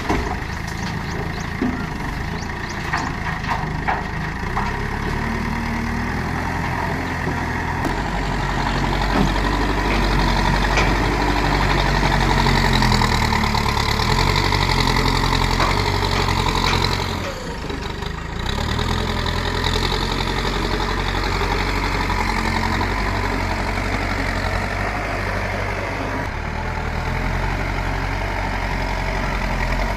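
Diesel engine of a heavy earthmoving machine running, its note rising and falling with the load. A few light clicks sound in the first few seconds, the engine works harder through the middle, dips briefly a little past halfway, then carries on steadily.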